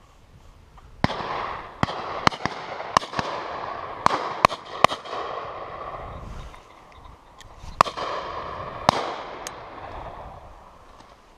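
Shotgun fire on a driven pheasant shoot: about a dozen shots from several guns, some close and sharp, others fainter and further off, coming in a quick run for a few seconds, then a pause, then a few more. Each report echoes and rolls on after it.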